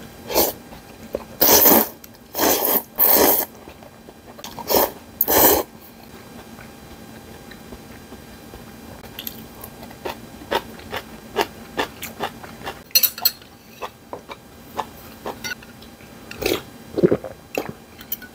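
A person slurping noodles from a bowl of gomtang beef bone soup: about five loud slurps in the first six seconds, followed by chewing and scattered light clicks and taps.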